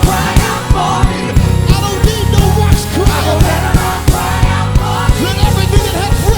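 Live gospel worship band playing with drums, bass and singing voices, a steady driving beat.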